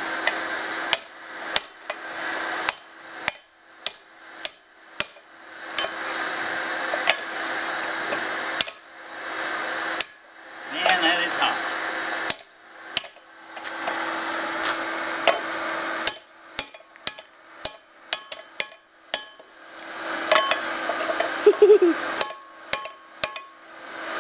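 Hand hammer striking a red-hot steel plow beam on a railroad-rail anvil, in quick runs of sharp ringing blows with pauses between, bending the twisted beam back. Between the runs there is a steady hiss from the hair-dryer blower feeding the forge fire.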